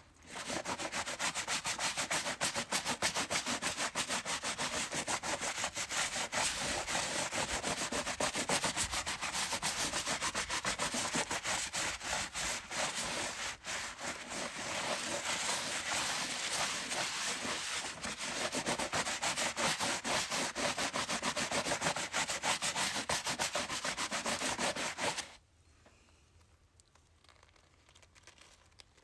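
Brush scrubbing a chair in rapid back-and-forth strokes, a dense run of rubbing that cuts off suddenly near the end.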